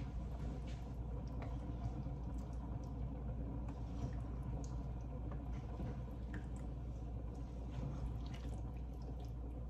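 Pot of curry soup simmering on the stove while a wooden spoon stirs through it: a steady liquid sound with scattered small clicks.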